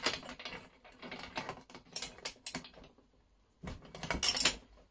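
Irregular small metal clicks, rattles and scrapes of hand tools and parts being handled at a chainsaw on a workbench, with a short pause about three seconds in and a cluster of louder clicks near the end.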